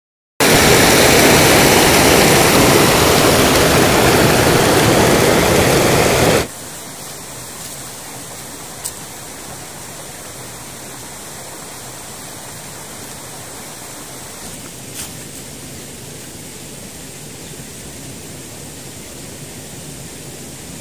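Water rushing loudly over rocks in a forest stream, cutting off suddenly about six seconds in. A much quieter steady hiss follows, with two faint clicks.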